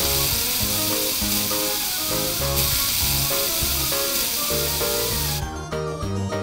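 Aerosol spray-paint can hissing in one long, steady spray that cuts off about five seconds in, over cheerful children's background music with a steady beat.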